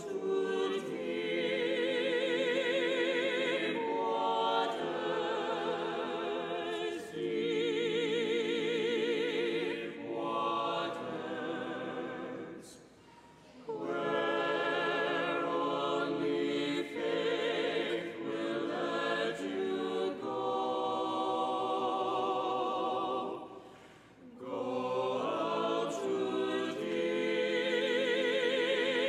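Church choir singing a hymn in long, sustained phrases with vibrato, pausing briefly between phrases about 12 and 24 seconds in.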